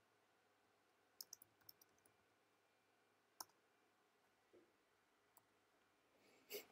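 Faint computer keyboard keystrokes: a quick run of about five about a second in, then single taps later, against near silence.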